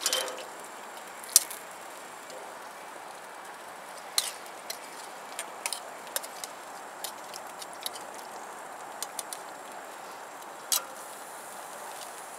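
Metal tongs clicking against a metal saucepan and the grill grate: a dozen or so sharp, light clicks at irregular intervals over a faint steady hiss.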